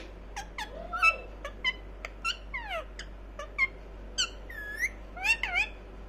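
Ringneck parakeet chattering in a string of short squeaky chirps and clicks, a few a second, each sliding up or down in pitch, with a quicker run of up-and-down squeaks near the end.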